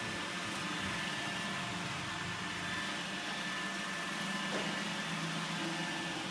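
Robot vacuum cleaner running, a steady whir with a faint constant high whine.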